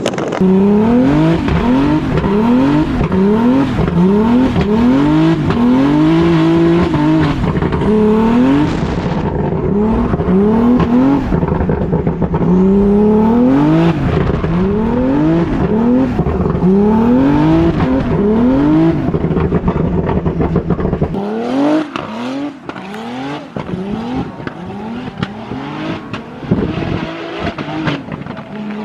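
Big-turbo BMW E46 M3 drift car's engine revving up and falling back again and again, about once a second, as the car is thrown into slides. About three-quarters of the way through, the revs drop lower and the engine goes quieter for a few seconds before picking up again.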